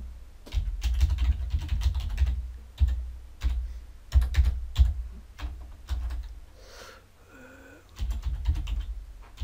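Typing on a computer keyboard: quick runs of keystrokes in bursts, with a pause of about a second and a half late on before the typing picks up again.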